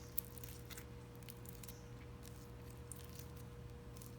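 Faint handling noises, a few soft scattered clicks and ticks, over a steady low electrical hum.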